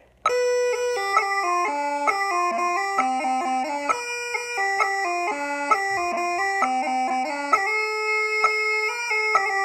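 Bagpipes start together about a quarter-second in and play a quick-moving tune in harmony, several parts sounding at once.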